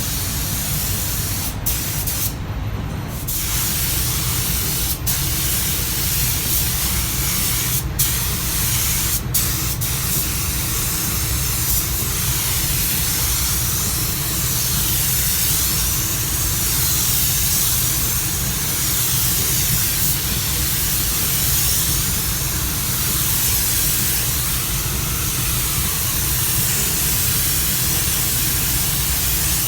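Compressed-air spray gun spraying with a steady loud hiss. It stops for about a second near the start as the trigger is let off, and there are a few very brief breaks in the first ten seconds. A steady low rumble runs underneath.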